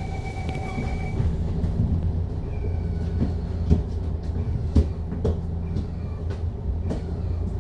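Cabin noise of a MAN A95 Lion's City double-deck bus under way: a steady low engine and road drone, with scattered knocks and rattles from the body, two sharper knocks about halfway through.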